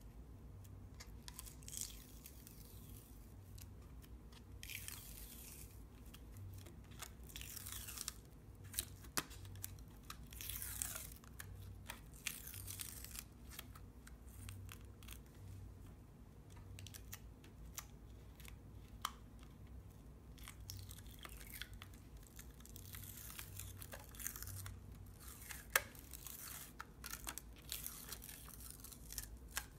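Dried masking fluid being rubbed up and peeled off watercolour paper by fingertips: soft, irregular tearing and crinkling rasps with occasional small sharp clicks.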